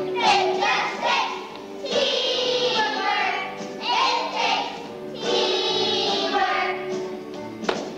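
A choir of young children singing a song together in held phrases, with a steadier musical accompaniment beneath. A single sharp knock sounds near the end.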